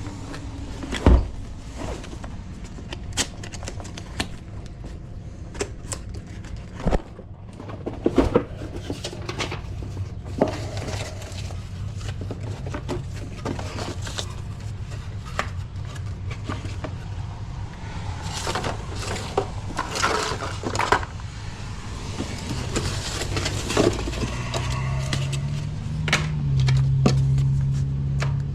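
Scattered clicks and knocks of deadbolt hardware being handled and fitted into a door, over a steady low hum. A louder low hum comes in about 25 seconds in.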